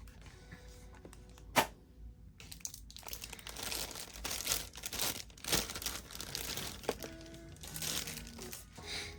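Plastic packaging crinkling and rustling as it is handled, with a single sharp click about a second and a half in.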